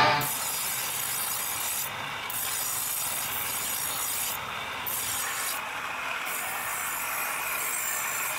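Steel knife blade held against a spinning abrasive stone wheel on a pedal-driven grinder: a steady grinding hiss. Its highest part thins out briefly about three times.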